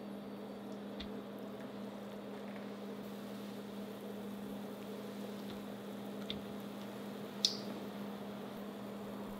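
Steady hum and hiss from an induction cooktop heating a pan of frying oil, with a few light clicks and one sharp click about seven and a half seconds in.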